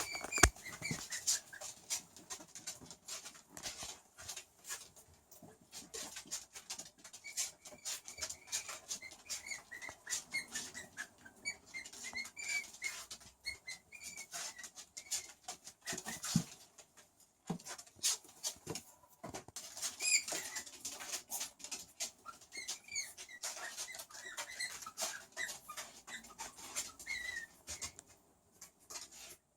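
Skunk squeaking and chirping in short, high, repeated calls, among many sharp clicks and scuffling noises.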